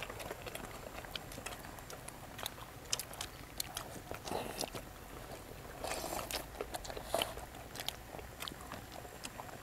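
Close-miked eating sounds: people biting into and chewing bread rolls dipped in curry, heard as scattered short crunches and mouth clicks.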